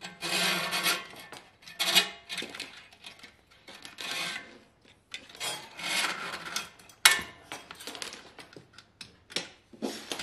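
Steel cable dragged and wrapped around a small engine's flywheel fan and cylinder, scraping and rubbing against the fins in a series of irregular swishes, with a sharp click about seven seconds in.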